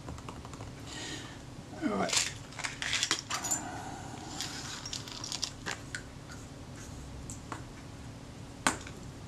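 Small metal camera parts clinking and tapping as they are picked out of a parts tray by hand. There is a quick cluster of light clicks about two seconds in, then a few single taps spread over the rest.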